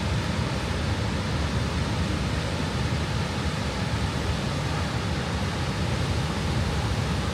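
Steady rushing of the American Falls at Niagara: the even noise of a large mass of falling water, heavy in the low end.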